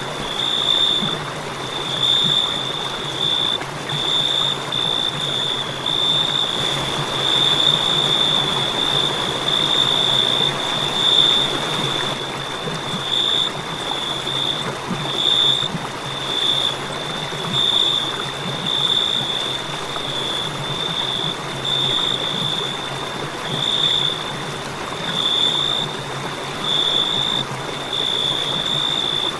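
Crickets chirping: a steady high-pitched trill that swells in pulses about once a second, over a constant hiss.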